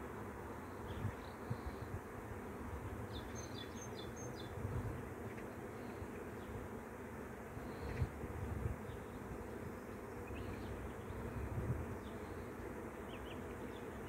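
A swarm of honey bees in flight: the steady, dense hum of many wings. A few short high chirps come through about three to four seconds in.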